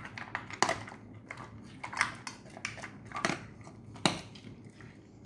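An Alaskan malamute eating dry kibble from a stainless steel bowl: irregular crunching and clicking as it chews, with a few sharper crunches standing out.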